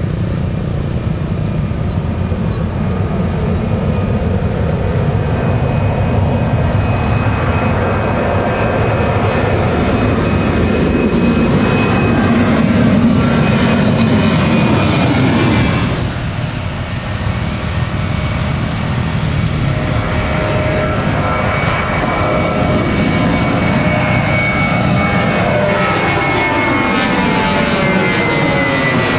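Airliner's engines at take-off power: a loud, continuous roar with whining tones that slide down in pitch as the aircraft goes past, easing a little about halfway through.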